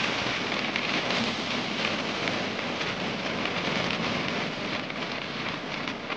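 Steady rush of wind buffeting a phone's microphone, mixed with road noise from a moving vehicle.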